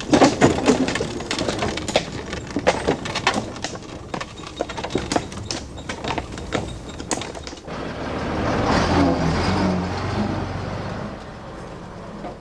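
Street traffic: a run of irregular clattering knocks, then a motor vehicle's engine swelling past about eight seconds in and fading away.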